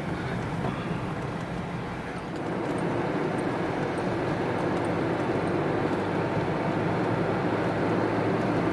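A car driving on the road: steady engine and tyre noise, which grows louder about two seconds in.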